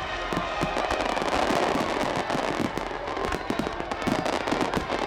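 Aerial fireworks bursting in a dense, rapid barrage: many sharp bangs and crackles overlapping, several each second, with music playing underneath.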